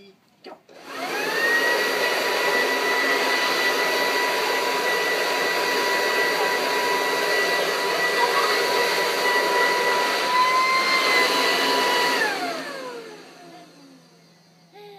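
Leaf blower switched on about a second in, its whine rising as it spins up. It runs steadily, then is switched off about twelve seconds in and winds down with a falling whine over about two seconds.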